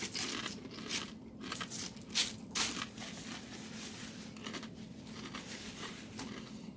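Crunchy eating close to the microphone, typical of jalapeño potato chips: a run of sharp crunches over the first three seconds or so, the loudest two about half a second apart, then softer chewing.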